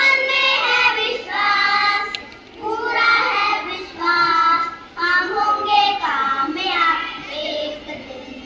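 A group of children singing together, in short phrases with brief pauses between them.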